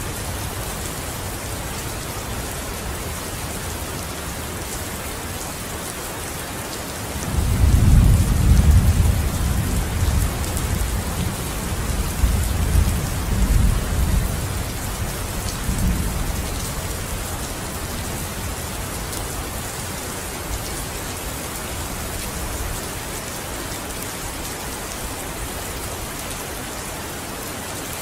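Steady rain pattering on a window, with a long roll of thunder that swells in about seven seconds in, rumbles in waves and dies away after about nine seconds.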